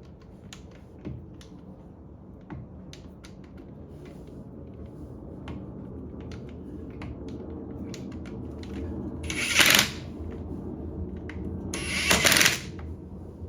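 Ridgid 18-volt cordless impact wrench tightening lug nuts on its automatic setting, hammering in two short loud bursts a couple of seconds apart near the end and stopping on its own. Scattered light clicks are heard before them.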